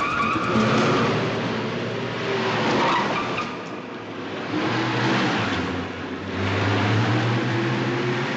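Car engine revving hard, with tyres squealing on the tunnel roadway in the first second; the engine note climbs and grows louder in the second half. The sound rings off the tiled tunnel walls.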